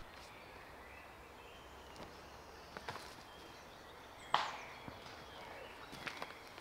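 Quiet woodland ambience with faint distant birdsong, broken by a few sharp ticks and snaps, the loudest about four seconds in, as a player walks over the forest floor.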